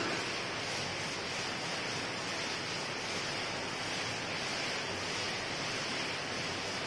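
Steady swishing hiss of a felt duster being rubbed back and forth across a whiteboard to erase it.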